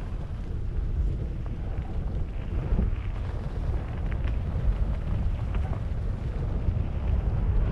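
Wind buffeting the microphone of a camera on a mountain bike moving along a forest trail, a steady low rumble, with a few faint clicks and rattles from the bike and its tyres on the ground.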